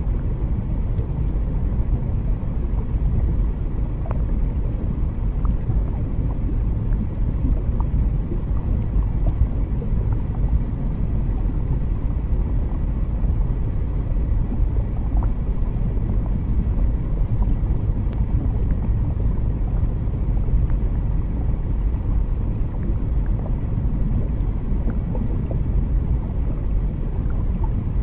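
Steady low underwater rumble, a deep even wash of noise with faint scattered ticks.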